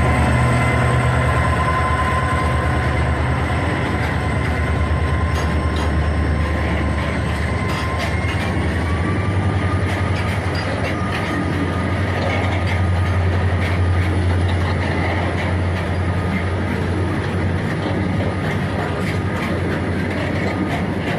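EMD two-stroke diesel locomotive humming steadily: a deep drone with a thin high whine above it that steps up slightly in pitch about nine seconds in. Scattered clicks come around the middle and near the end.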